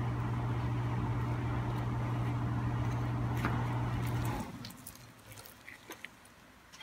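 A low, steady electrical hum that cuts off abruptly about four seconds in, leaving only a few faint clicks.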